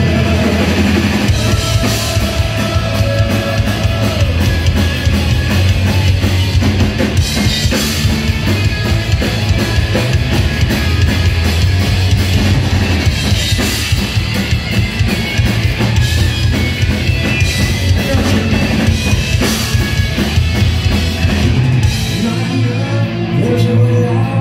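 Live punk rock band playing loud through a club PA: pounding drum kit with kick and snare, over electric guitars and bass. The lowest bass notes drop away near the end.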